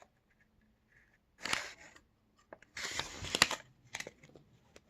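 Crinkling rustles of packaging being handled, with a few sharp crackles: a short one about a second and a half in, a longer one around three seconds, and a small one near four seconds.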